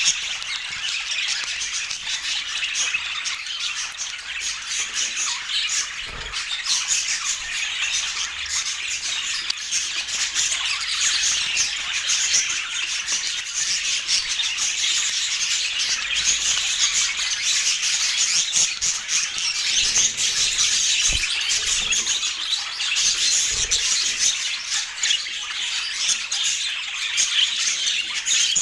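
Budgerigars chattering and warbling without pause, a dense stream of short, high squawks and chirps.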